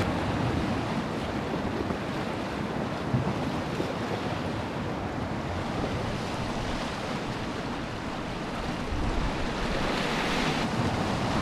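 Ground swell washing against shore rocks, a steady rush of surf. A bigger wave surges and breaks over the rocks about ten seconds in, the loudest moment.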